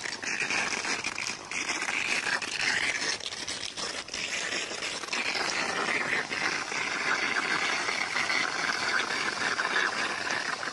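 Steady rush and splash of water running off a flat roof, with fine crackling spatter throughout.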